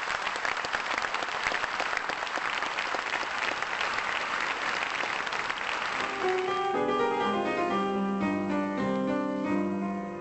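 Audience applauding. About six seconds in, a piano starts playing sustained chords and the applause dies away.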